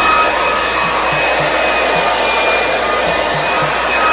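Red by Kiss Handle-less 2200 blow dryer running steadily: a loud rush of air with a high, even whine from its motor.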